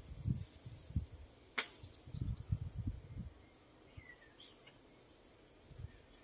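Wind buffeting the microphone in irregular low gusts, with faint high bird chirps in quick falling groups of three and one sharp click about a second and a half in.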